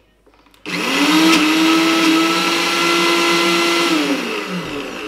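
Small personal blender blending ginger and garlic into a paste: the motor starts abruptly a little under a second in, spins up quickly, runs at a steady high whir for about three seconds, then winds down with a falling pitch.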